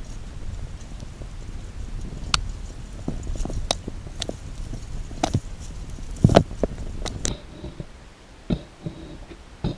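Bicycle jolting along a rough, overgrown dirt trail: a low rumble with scattered rattles and knocks, loudest a little past the middle. About seven seconds in the sound turns quieter and muffled, with only a few faint clicks.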